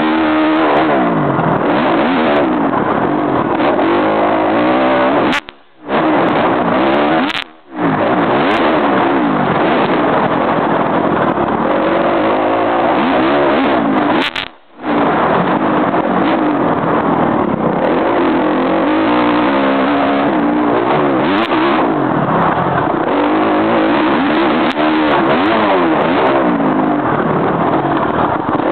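Dirt bike engine heard from onboard, revving hard with its pitch rising and falling over and over as it is ridden around a dirt track. The sound cuts out briefly three times.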